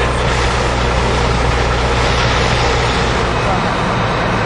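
A heavy vehicle's engine running steadily under a broad rushing noise, its low hum dropping away about three and a half seconds in.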